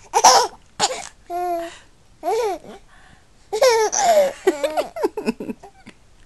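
A four-month-old baby laughing and squealing in short, high-pitched bursts, one of them a briefly held squeal, then a longer run of quick laugh pulses about three and a half seconds in.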